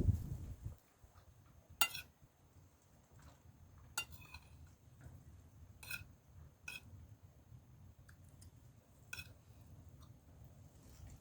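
Cutlery clinking lightly against a dish while eating: about five separate clinks a second or two apart, some with a short ring.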